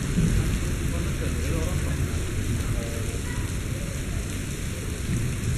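Steady heavy rain falling, an even hiss with no distinct events, with faint voices behind it.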